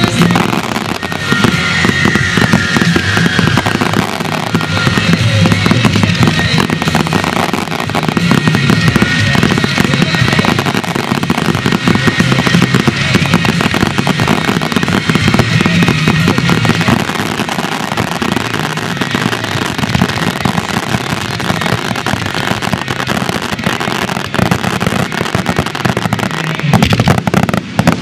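Professional fireworks display: a continuous barrage of firework bursts and crackling, layered over the display's music soundtrack.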